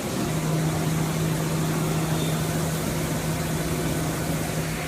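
FANUC welding robot cell running, with a steady low hum that starts just after the beginning and stops shortly before the end, over continuous background noise.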